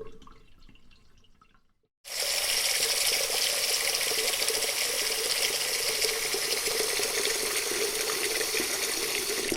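Water running steadily in an even splashing hiss. It starts abruptly about two seconds in, after a fading tail and a moment of silence, and stops suddenly at the end.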